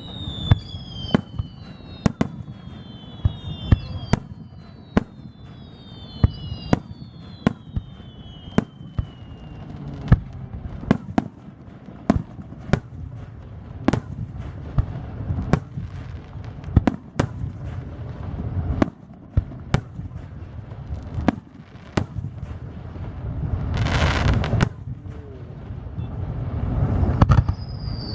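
Aerial fireworks exploding one after another in a steady barrage of sharp bangs. Several falling whistling tones run through the first nine seconds and return near the end, and a short crackling burst comes about three quarters of the way through.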